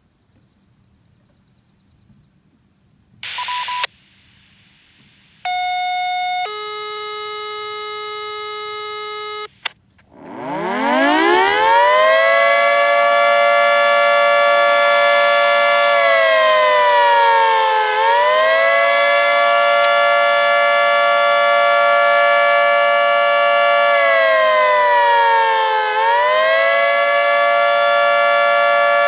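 A short radio beep, then a two-tone page: one tone for about a second, then a lower tone for about three seconds. About ten seconds in, a Federal 3T22 outdoor warning siren winds up from a low growl to full pitch and holds a loud, steady alert tone, dipping slightly in pitch about every eight seconds.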